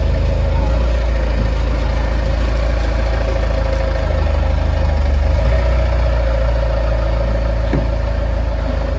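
A heavy vehicle's engine running steadily: a low rumble with a steady hum above it.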